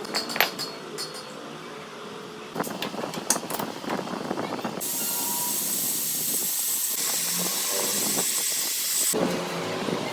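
Workshop repair sounds: scattered metal clicks and knocks, then a steady hiss for about four seconds that starts and stops abruptly.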